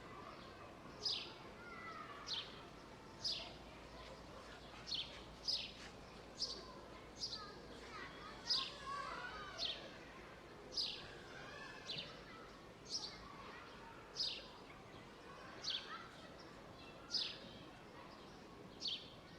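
A bird repeating a short, high chirp that sweeps downward, about once a second, over a steady hum of outdoor background noise. Fainter, softer wavering calls come through around the middle.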